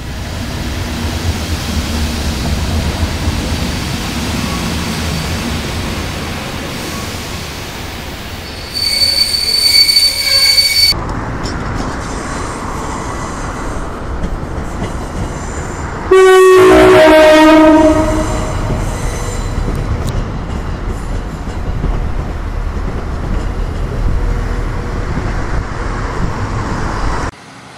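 Train running past with a steady rumble. About sixteen seconds in, a very loud two-tone train horn sounds for about two seconds, a higher note dropping to a lower one. Earlier, around nine seconds in, a shrill high-pitched tone rises over the rumble for about two seconds.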